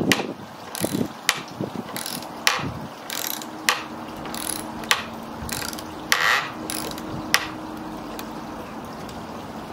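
Hand ratchet (socket wrench) clicking in uneven back-and-forth strokes as it drives a coach screw into a timber pergola brace by hand, where a drill lacks the power.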